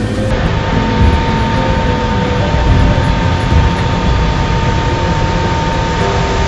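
Water gushing out of an artesian borehole under natural pressure, a steady loud rush of water and spray, over the low drone of the drilling rig's engine and compressor.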